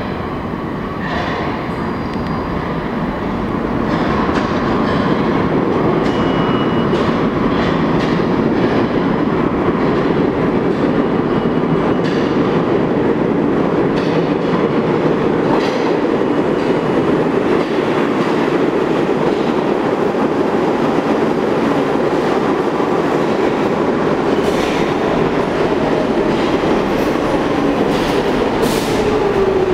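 New York City Subway R46 train entering the station, a steady rumble of wheels on rail that grows louder over the first few seconds as the train approaches. Scattered clicks come from the wheels crossing rail joints, and near the end a falling whine is heard as the train slows.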